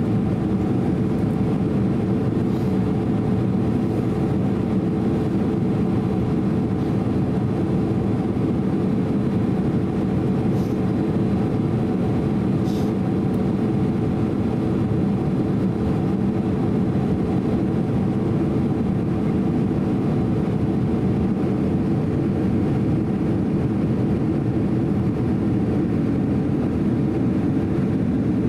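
Steady cabin noise of a Boeing 767-300 airliner in flight on its descent: a constant rush of engine and airflow noise with a steady low hum running through it.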